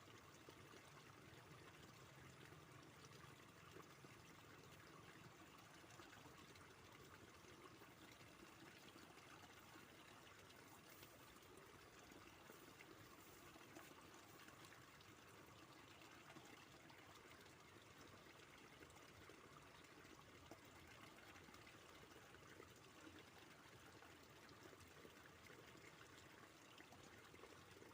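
Faint, steady flowing water of a stream or river.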